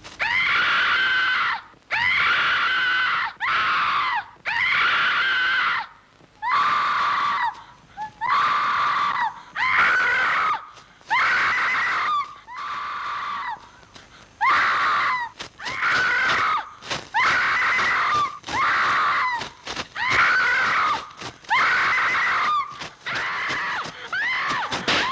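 A person screaming over and over: about a dozen long, high-pitched screams, each rising and falling in pitch, coming roughly every two seconds with short breaks between.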